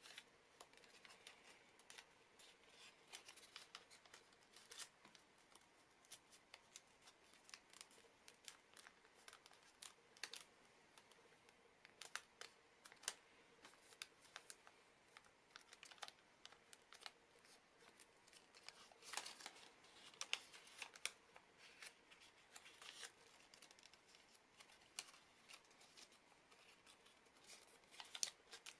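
Faint, irregular crackling and crinkling of origami paper being creased and folded by hand, with a busier run of sharp crackles about two-thirds of the way through.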